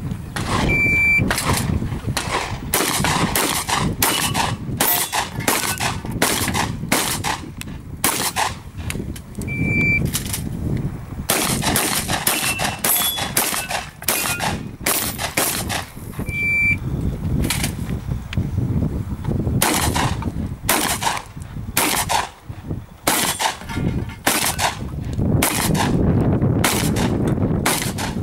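Shotgun fired over and over in fast strings, many loud blasts a fraction of a second apart with short pauses between strings. Three brief high beeps sound among the shots.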